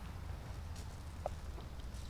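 Steady low rumble of wind on the microphone, with a couple of faint short ticks about a second in.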